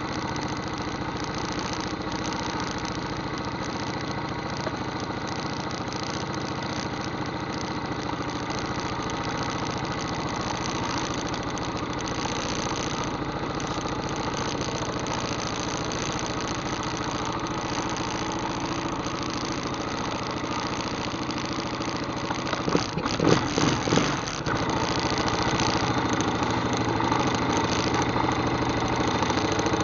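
ATV engine running at a steady speed, with a short cluster of thumps about twenty-three seconds in, after which it runs slightly louder.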